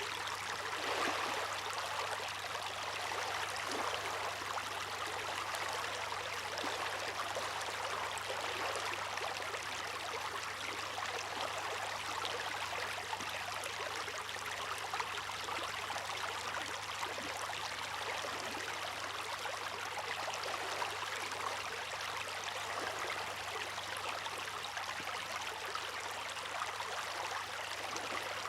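Water rushing and splashing steadily, a continuous even wash with small splashes and no rise and fall of breaking waves.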